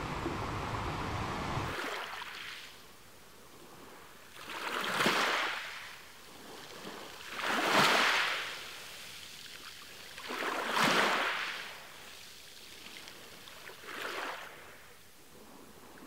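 Sea waves: a steady surf wash that cuts off abruptly about two seconds in, then four separate waves washing in about every three seconds, each swelling up and fading away.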